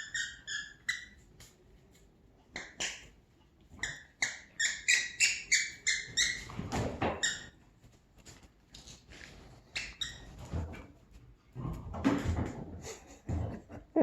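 An animal giving short, high-pitched squeals several times a second, in bursts, the densest run about four to seven seconds in. Lower scuffling noise comes around the middle and again near the end.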